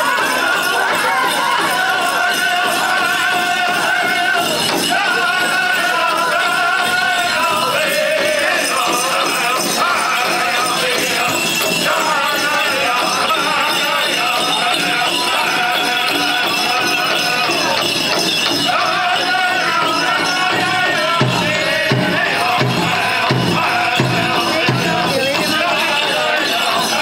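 Powwow drum group singing together over the big drum, with jingling bells over the song. The drumbeat stands out more strongly in the last few seconds.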